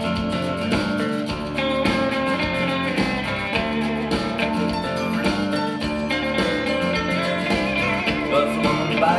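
A recorded song with guitar, bass and drums playing steadily through hi-fi loudspeakers, picked up by a microphone in the room.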